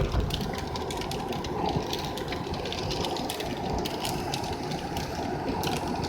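Inside a moving vehicle: a steady rumble of road and engine noise, with scattered light ticks.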